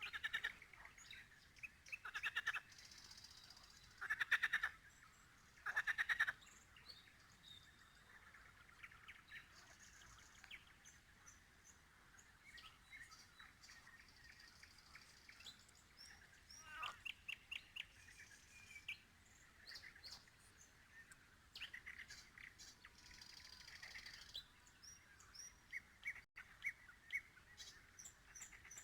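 Nightingale singing: phrases of rapid, repeated trilled notes, the loudest four in the first six seconds, then quieter phrases and short high chirps.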